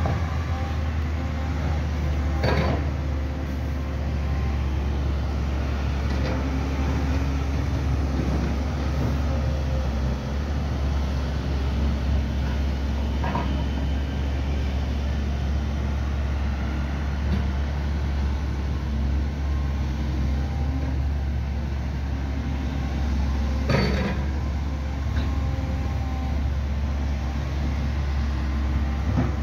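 Construction-site machinery with excavators at work: a steady low diesel rumble, with sharp knocks about two and a half seconds in and again near the end.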